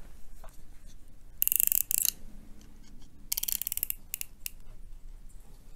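Two short bursts of crisp crinkling and rasping, about a second and a half in and again around three seconds in, followed by a couple of brief clicks: a small yellow package being opened in the hands.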